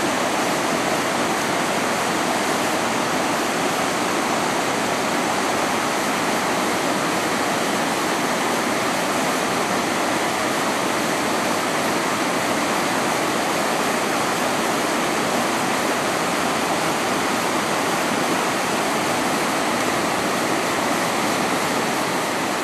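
River rapids rushing over rocks: a steady, unbroken rush of white water.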